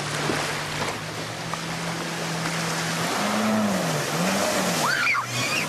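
Kawasaki STX-15F jet ski's four-stroke engine running hard as it sweeps through a tight turn close by, over the hiss of its spray. The engine holds a steady pitch at first, then about three seconds in its pitch rises and falls twice with the throttle.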